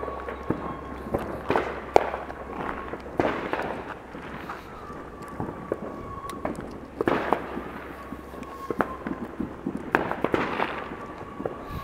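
Fireworks and firecrackers going off, an irregular string of sharp bangs and pops, some much louder than others, with the strongest about two seconds in and again near the end.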